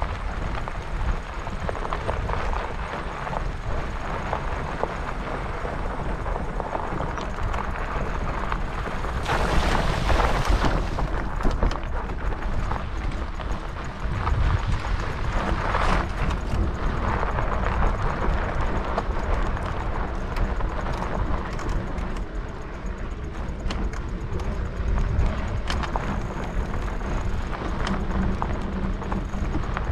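Ride noise of a bicycle on a rough dirt track: wind buffeting the microphone and tyre rumble, with many small rattles and knocks from the bike over the bumps. It swells louder about nine to eleven seconds in and again around sixteen seconds.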